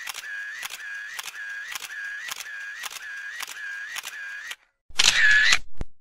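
Camera shutter firing repeatedly: about nine sharp clicks roughly two a second, each followed by a short steady whir. After a brief pause comes a louder single shutter release with the same whir, then one last small click.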